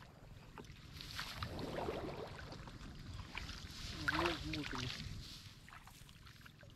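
Water splashing and sloshing as someone moves through a canal, over a steady low rumble, with a short wavering vocal sound about four seconds in.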